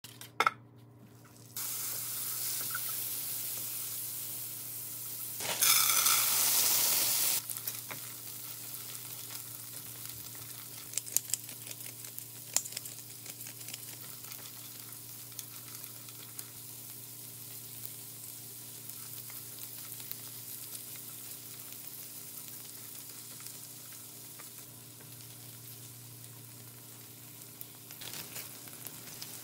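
Corn kernels sizzling in a hot nonstick frying pan while being stirred with a silicone spatula. The sizzling swells loudly for about two seconds near six seconds in, then settles to a steady sizzle, with a few light clicks of the spatula against the pan around eleven to twelve seconds in.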